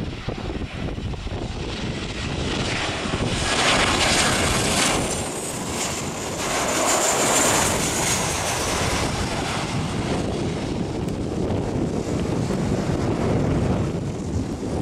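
Jeju Air Boeing 737-800 on final approach passing overhead. Its CFM56 turbofan jet noise swells from about three seconds in, with a high whine that falls slightly in pitch, then fades as the airliner moves away. Steady wind noise on the microphone runs underneath.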